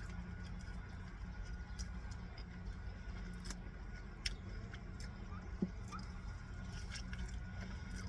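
Person chewing and eating food, with scattered small clicks and smacks, over a steady low hum.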